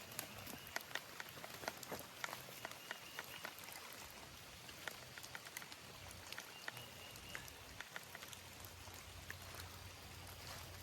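Rain falling, with many scattered drops ticking irregularly close by over a steady soft patter.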